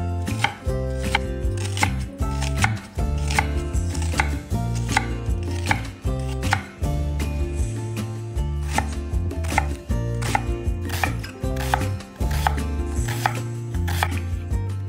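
A knife chopping food on a cutting board in quick, even strokes, about two to three a second with a few brief pauses, over steady background music.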